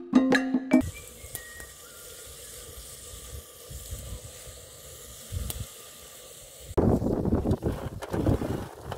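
Percussive background music stops about a second in. Then a stew in a pot over a wood fire sizzles and bubbles steadily. Near the end a louder, uneven stretch of scraping and sizzling comes as pieces of boiled liver are spooned from a metal tray into the pot.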